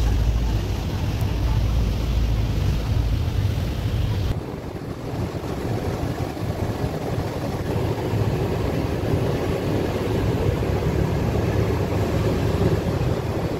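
Fast passenger boat under way: engine running with the wake rushing and spraying behind the stern, and wind buffeting the microphone. The low wind rumble drops off about four seconds in.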